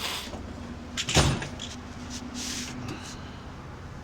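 A drawer of a Snap-on KCP1422 tool chest sliding, with a sharp knock about a second in and fainter scraping and rattling after.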